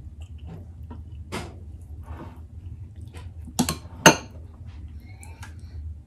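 Cutlery and serving spoons clinking against glass bowls and plates during a meal: a few light clinks, then two sharp ones a little past halfway. A low steady hum runs underneath.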